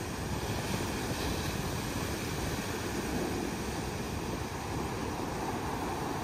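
Rough sea surf breaking and washing up a sandy beach as foam ahead of a storm: a steady low rumble with hiss on top.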